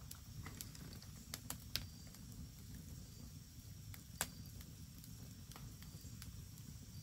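Split firewood burning in a campfire, crackling with a few sharp pops: a small cluster about a second and a half in and a louder single pop about four seconds in, over a low steady rumble.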